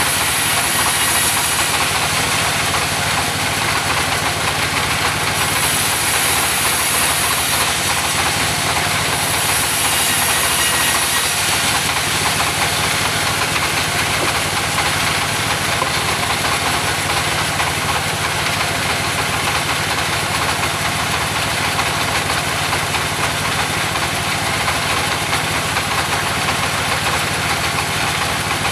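Engine of a mobile sawmill running steadily, with a high hiss that comes in three times in the first dozen seconds.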